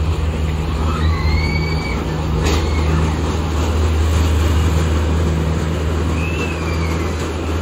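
Fairground ghost train ride running as its cars come out of the tunnel: a steady low machine hum, with a single sharp bang about two and a half seconds in and a few brief high-pitched glides.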